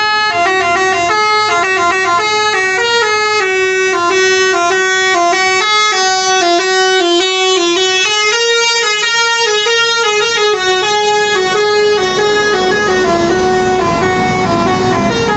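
Bus telolet basuri musical horn playing a fast tune of short notes that step up and down in pitch. In the last few seconds a growing rushing noise rises underneath the horn.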